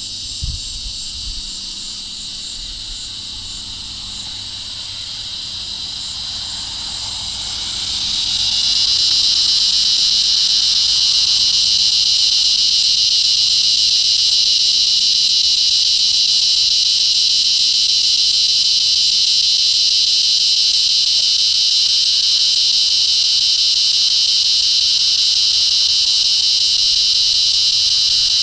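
Resonant cicada (Tibicen resonans) calling: a loud, continuous buzzing drone that swells about eight seconds in and then holds steady.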